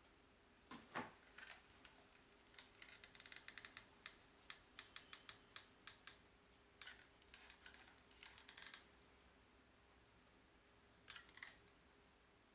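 Faint, quick, irregular clicking and crackling from handling a fabric-covered lampshade while working a hot glue gun along its seams. It comes in runs from about three to nine seconds in, with a short burst near the end.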